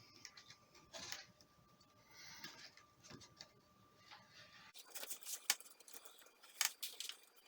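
Faint scratching and clicking of hands working a rubber spline into the channel of an aluminium window screen frame. The clicks turn sharper and more frequent from about five seconds in.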